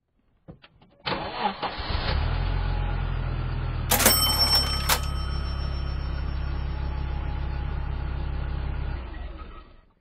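A car's V6 engine cranks, catches about two seconds in and settles into a steady, even idle, with a brief high-pitched clatter about four seconds in; it fades out near the end. It is running normally with a new fuel injector in cylinder 4, replacing one with an open winding that caused the misfire.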